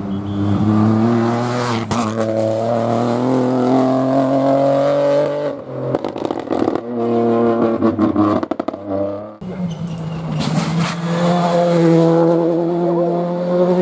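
Rally car engine accelerating hard, its pitch rising for about five seconds, then a rapid string of sharp cracks and pops. About nine seconds in the sound changes abruptly, and a rally car engine again accelerates with rising pitch.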